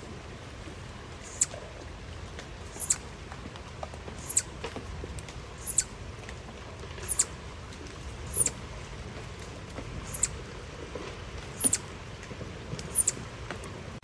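Chipmunk giving sharp, very high chip calls, nine of them at an even pace of about one every second and a half, right close by, over the steady rush of the river current.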